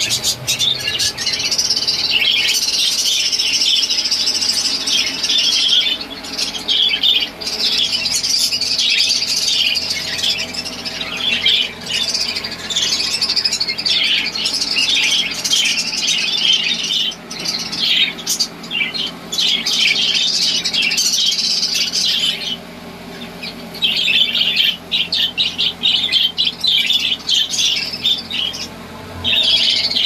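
A large flock of budgerigars chattering together, a dense stream of short chirps, warbles and squawks, with a brief lull about two-thirds of the way through.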